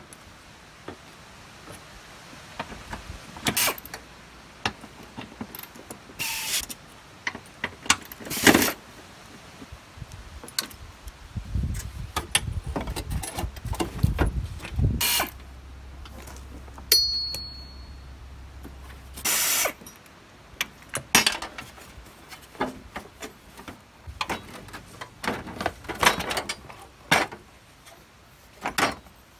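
Scattered metal clicks and knocks from a wrench on bolts and from the Toyota Prius V's windshield wiper linkage being worked loose. A low steady hum sounds for several seconds in the middle.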